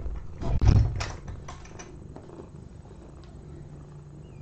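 A cat shifting and turning in a fleece bed close to the microphone: rustling and soft bumps, loudest about half a second to a second in, then quieter.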